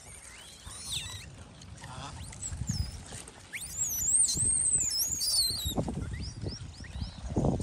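High-pitched animal calls: a quick run of chirping notes gliding up and down, loudest in the middle, with a few low thumps near the end.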